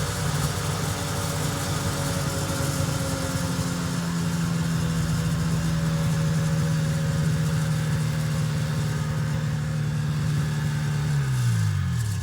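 1974 John Deere 600 snowmobile's two-stroke engine running steadily, then shut off near the end, its pitch sliding down as it winds to a stop.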